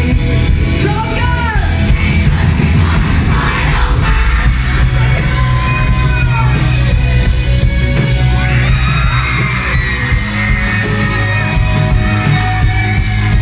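Live rock band playing loudly through the PA: a male lead vocalist sings over electric bass, synthesizer and drums.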